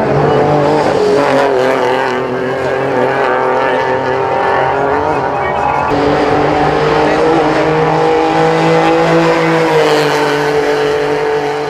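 Small rally car engines running hard at high revs as the cars pass on a paved street stage. The engine pitch holds fairly steady and changes at a cut about six seconds in.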